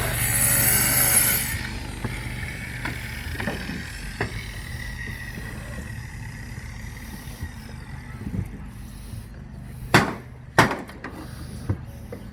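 Knocks and taps from concrete-tile roofing work, with two sharp, loud knocks about ten seconds in, after a brief rush of noise at the start.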